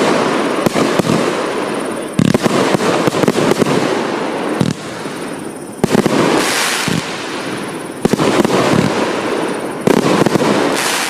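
A 146-shot TOP 167 'Raja Ampat' firework cake firing its shells in rapid succession, with dense bangs and crackling. The firing comes in loud volleys about every two seconds, each fading into crackle before the next.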